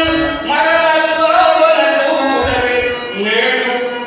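A man singing a verse of a Telugu stage drama into a microphone, holding long drawn-out notes in the sung style of a padyam, over a musical accompaniment.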